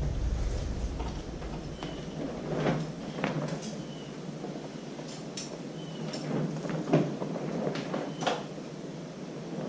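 Scattered light metal knocks, clinks and short squeaks as a cover is worked loose from a Harley-Davidson Shovelhead engine by hand.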